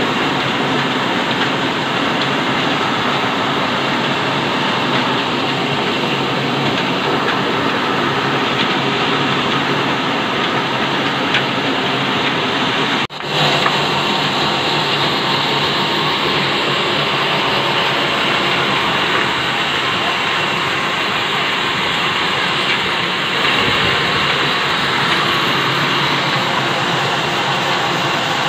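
An old stationary engine and the flat-belt-driven band sawmill it powers, running steadily; the sound cuts out for a moment about halfway through.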